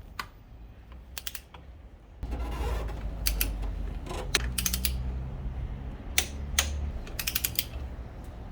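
Ratchet wrench clicking in several short, quick runs as the ignition coil's mounting bolts are tightened, with a low rumble under the middle of it.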